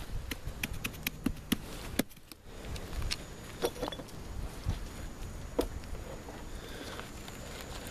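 Footsteps crunching in snow, then scattered sharp taps and scrapes of a stick prodding ice between snow-covered rocks.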